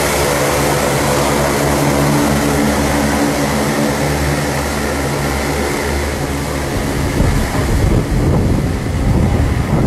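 Propeller engines of a turboprop transport plane running as it taxis, a steady hum with a whine. From about seven seconds wind buffets the microphone with gusty rumbling.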